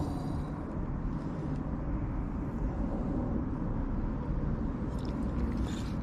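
Steady low background rumble, with a few faint short clicks near the end.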